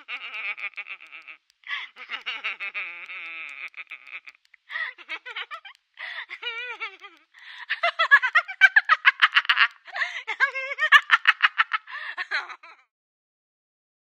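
A woman laughing hysterically, heard over the phone with a thin, narrow telephone sound: separate bursts of laughter with short gaps, turning into long runs of fast, rapid laughs in the second half. The laughter stops shortly before the end.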